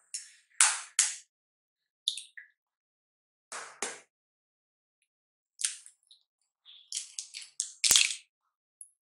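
Two eggs cracked open by hand into a glass bowl: a series of sharp clicks and crackles as the shells break and are pulled apart, with a louder knock near the end.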